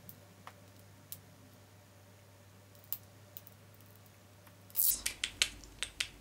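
Small plastic clicks and taps as a NYX Butter Gloss lip gloss tube is handled and opened: scattered single clicks, then a brief rustle about five seconds in followed by a quick run of clicks.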